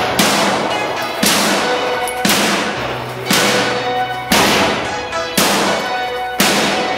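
Background rock music with a loud drum hit about once a second, each hit trailing off in reverb over a held synth chord.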